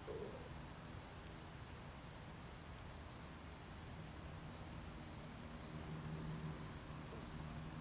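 Crickets singing: a faint, steady high chirring, over a low background hum.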